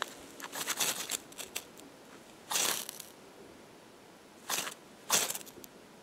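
Ferro rod struck with a scraper over birch bark to throw sparks: a quick run of short scrapes, then three single strikes a second or two apart, as the bark is coaxed to light.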